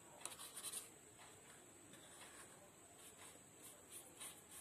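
Faint, short strokes of a paintbrush dabbing acrylic paint onto a plastic bottle, irregular and soft, barely above room quiet.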